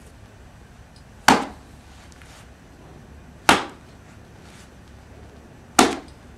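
Three sharp slaps about two seconds apart: a pair of buff gauntlet gloves being slapped against a hand.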